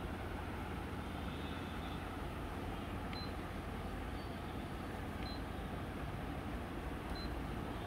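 Canon imageRUNNER Advance photocopier running: a steady low hum and whir of its motors and fans, with a few brief high chirps and faint clicks partway through.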